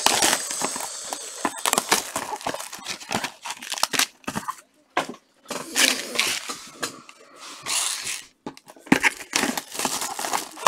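Plastic wrapping being torn off a sealed box of trading cards and crumpled in gloved hands, in irregular crinkling rustles with short pauses.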